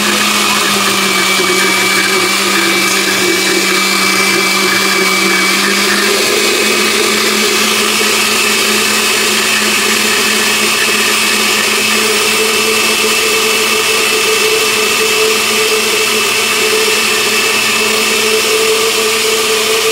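Countertop blender running at a steady whir as it blends a milky liquid mixture. Its motor note steps up slightly about six seconds in.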